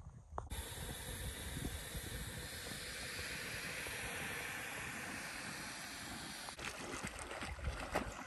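Backpacking canister stove burner running with a steady hiss. Near the end it gives way to water splashing.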